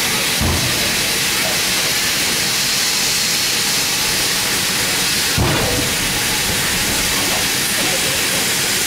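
Steady hiss of escaping steam from the GWR Hall-class steam locomotive 4965 Rood Ashton Hall, heard close by. Two brief low knocks come through it, one about half a second in and one midway.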